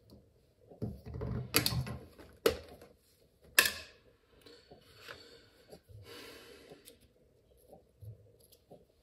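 A plastic precision-screwdriver case being unclipped and opened: three sharp snapping clicks in the first four seconds. Then quieter rattling and rubbing as the small screwdrivers are handled and one is taken out.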